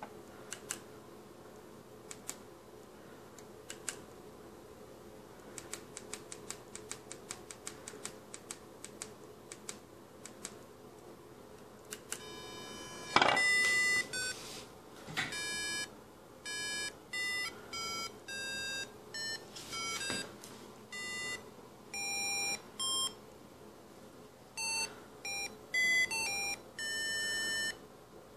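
Bare loudspeaker driven by a homemade AVR microcontroller MIDI player, playing a melody as buzzy square-wave beeps, one note at a time, the notes differing in pitch and length. Before the notes there is a run of small clicks, then a loud thump about 13 seconds in as the tune begins.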